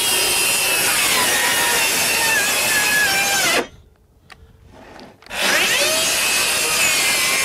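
Ryobi One+ HP 18V brushless 7-1/4-inch circular saw cutting 3/4-inch plywood, its whine falling in pitch as it is pushed hard, until it bogs and stops abruptly a little over three seconds in. About a second and a half later it spins up again and cuts on, the whine dropping again under the load. With the stock Ryobi blade and a 3 Ah battery, pushing it hard can stop the saw.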